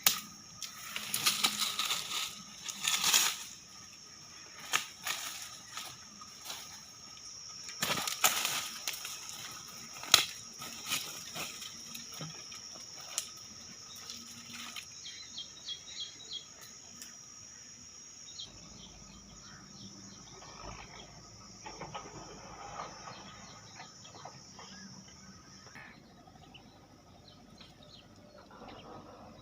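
Rustling and flapping with many sharp clicks, dense and loudest in the first half and thinning out after about halfway, over a steady high-pitched insect drone.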